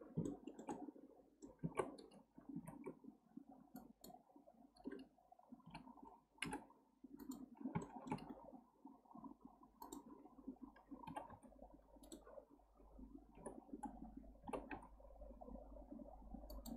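Faint, irregular clicking of a computer mouse and keyboard as keys and mouse buttons are pressed, over a low steady hum.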